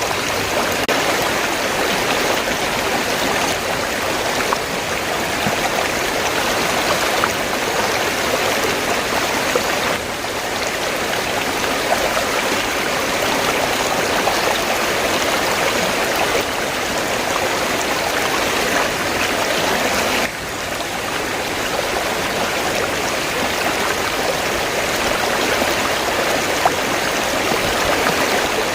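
River water flowing and rushing steadily, with slight drops in level about ten and twenty seconds in.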